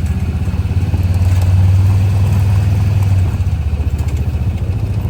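Kubota tractor's diesel engine running steadily with a low, rapid pulsing, easing off slightly about three seconds in.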